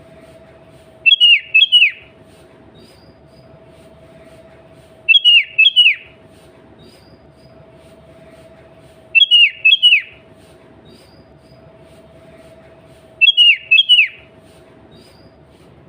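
Sooty-headed bulbul (kutilang) calling: four short phrases of quick, downward-slurred whistled notes, one about every four seconds, over a faint steady hum.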